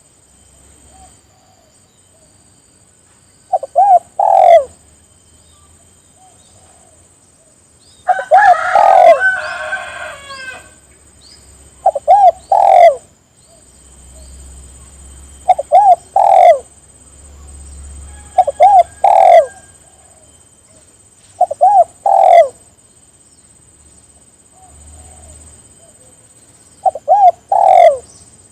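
Spotted dove (tekukur) cooing: short phrases of a few low coos, repeated about every three to four seconds. About eight seconds in, a longer, busier call with higher notes overlaps one phrase.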